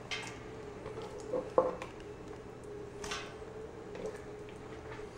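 Raw pork rib pieces being set by hand into an empty stainless steel stockpot: a few soft knocks and light taps against the metal, over a faint steady hum.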